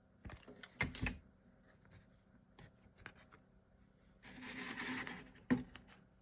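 Small clicks and knocks of chipboard craft pieces and glue being handled on a tabletop, then about a second of rubbing hiss and a single sharp tap near the end.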